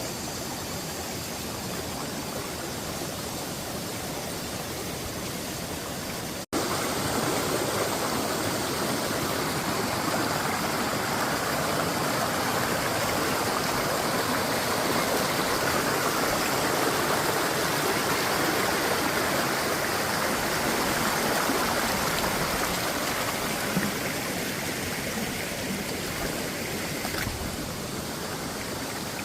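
Running water rushing steadily. The sound cuts out for an instant about six seconds in, comes back louder, and eases off a little near the end.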